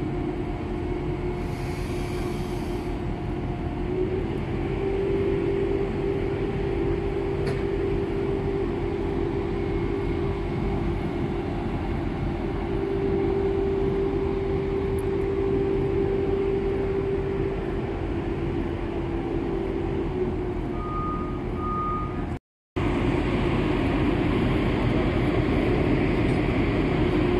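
Crane diesel engine running steadily, with a constant hum over a low rumble; the sound cuts out for a split second near the end.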